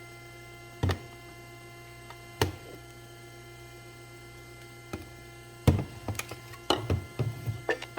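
Steady electrical hum with a few sharp knocks. About six seconds in, a quick run of clicks and clatter begins, like objects being handled on a work surface.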